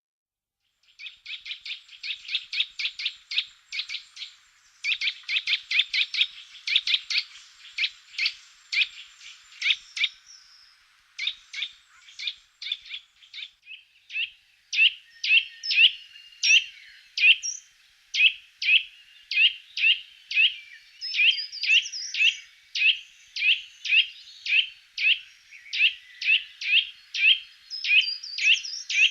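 Small birds chirping: rapid runs of short, high chirps at first, settling about halfway through into an even series of about two chirps a second.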